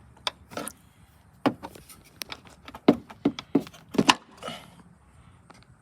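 Irregular sharp clicks and knocks of hard plastic as a car's lower light housing is pried and worked loose with a flathead screwdriver, busiest from about two to four seconds in.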